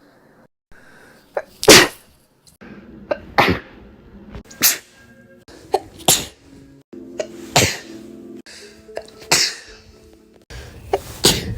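A person sneezing about seven times in a row, one sneeze every second and a half to two seconds, each sharp and loud, several with a short catch of breath just before.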